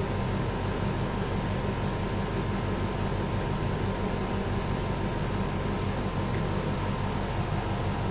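Steady low hum with a constant hiss, unchanging throughout, with no clicks or other distinct events.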